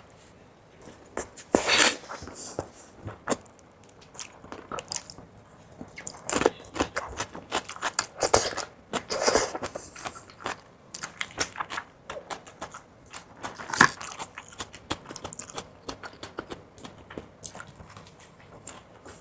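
Close-miked eating of fried fish balls: biting and chewing with wet mouth clicks throughout and a few louder bites.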